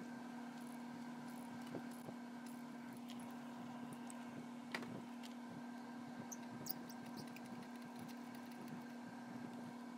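Light metallic clicks and taps from a ratchet and socket extension being worked on a spark plug, scattered and irregular, the sharpest just before halfway through, over a faint steady hum.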